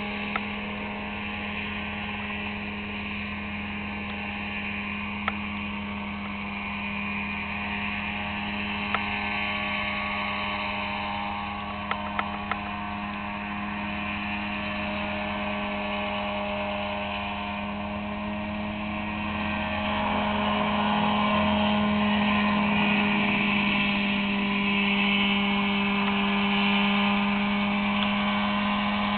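Mosquito ultralight helicopter hovering low, its two-stroke engine and rotor running with a steady hum. It grows louder about two-thirds of the way through as the machine comes closer.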